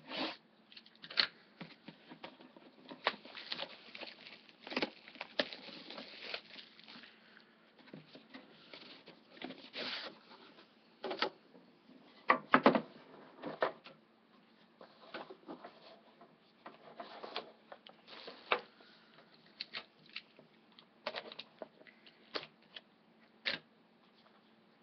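A sealed trading-card box being unwrapped and opened by hand: irregular crinkling and tearing of plastic wrap, with scrapes and rustles of cardboard and packaging.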